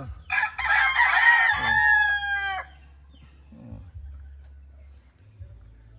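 A rooster crowing once, a single drawn-out call of about two seconds that trails off at the end.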